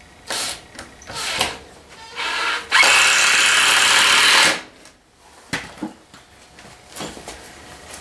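Power drill working into a pine shelf frame: three short bursts, then one steady run of about two seconds. A few light knocks follow.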